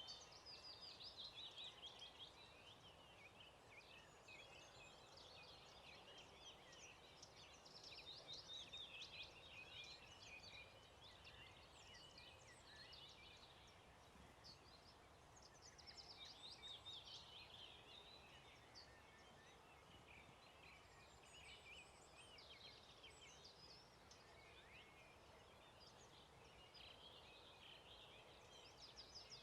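Faint dawn chorus of many songbirds singing at once: overlapping quick chirps and trills that never stop, over a low steady outdoor hiss.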